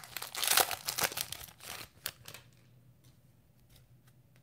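Foil wrapper of a 2019-20 Panini Mosaic basketball card pack crinkling as it is pulled off the cards, for about the first two seconds; then only faint light clicks as the card stack is handled.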